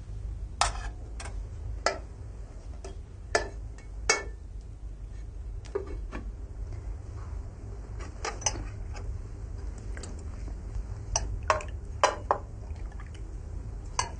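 Spoons and dishes clinking during a meal: scattered sharp clinks of metal spoons against plates and a metal serving pot, over a steady low hum.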